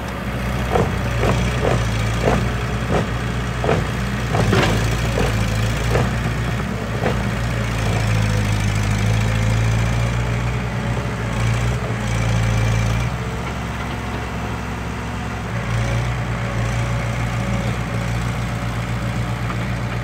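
Diesel engines of a Mitsubishi BD2F crawler bulldozer and a tracked excavator running: a steady low engine note that swells for a few seconds past the middle, then eases. A quick run of knocks, about two to three a second, sounds in the first five seconds.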